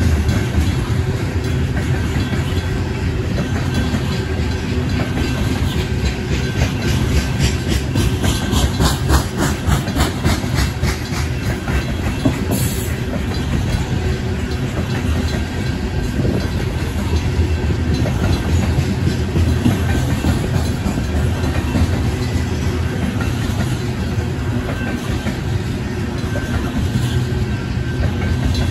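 Union Pacific coal train's hopper cars rolling slowly through a grade crossing, a steady heavy rumble with wheels clacking on the rails, while the crossing bells keep ringing. A run of quick, even clicks stands out for roughly the first ten seconds.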